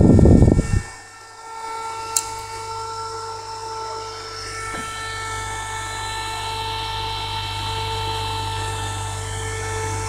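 Small 12 V DC printer motor spinning a PC cooler fan: a rush of air for the first second, then a steady whine over a low hum. A sharp click about two seconds in.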